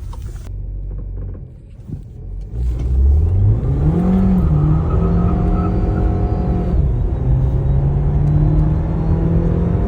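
Turbocharged 1.4 four-cylinder engine of a Volkswagen Polo accelerating hard from a standing start. The engine first sags, then the revs climb steeply from about two and a half seconds in as the turbo picks up after a moment of lag. About seven seconds in, a gear change drops the pitch, and it pulls on and rises again.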